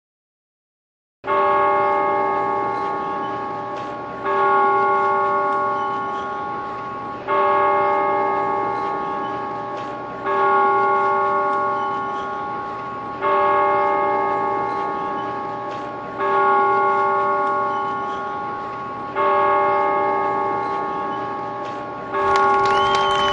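A bell tolling slowly, starting about a second in and struck eight times about three seconds apart. Each stroke rings on and fades away before the next.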